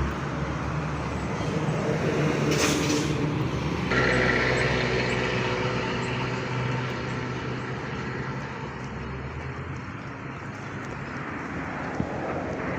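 Road traffic passing on an adjacent road: engine and tyre noise that swells about four seconds in and fades away, with a short hiss about two and a half seconds in.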